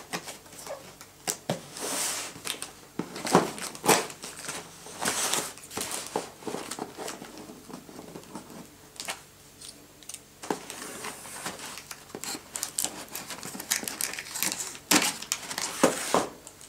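Scissors cutting through the packing tape on a cardboard shoebox, with the box being handled: irregular scratching, snipping and tape crinkling, with several sharp clicks and scrapes.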